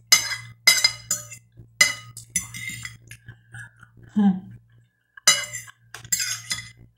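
Metal fork clinking and scraping against a glass plate: clusters of sharp, ringing clinks, with a short voiced murmur from the eater about four seconds in.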